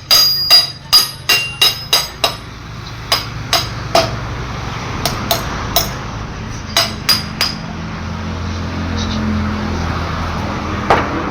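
Hammer blows with a metallic ring: a quick even run of about two and a half strikes a second, then slower scattered strikes, and a steady low hum in the last few seconds.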